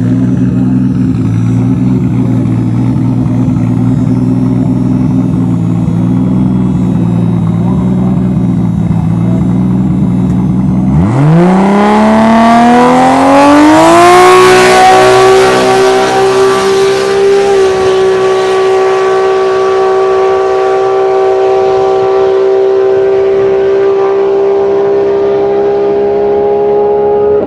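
Turbocharged Toyota Supra engine running at low revs at the start line, then about eleven seconds in it launches. The revs climb quickly and then hold at one high, unchanging pitch for over ten seconds, screaming as if the car never shifted: the engine is being held at its rev ceiling until it blows.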